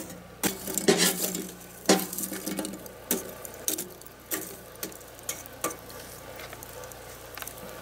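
Kitchen utensils knocking and clinking against dishes during food preparation, a sharp tap roughly every half second.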